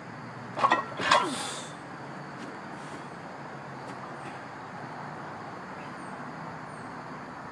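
Loaded barbell being cleaned to the shoulders: two sharp metallic knocks about half a second apart in the first second or so as the bar is pulled and caught, followed by a short rush of breath. Then steady background noise with a few faint high chirps while the bar is held at the shoulders.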